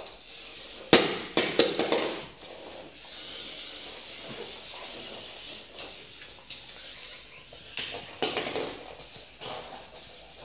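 Sharp knocks and slaps on a laminate floor from a toddler's hands and a ball: a loud cluster about a second in and another around eight seconds in.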